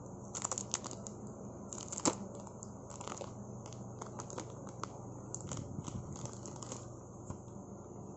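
Clear plastic wrapping being peeled off a CD+DVD package, crinkling with irregular sharp crackles, the loudest about two seconds in.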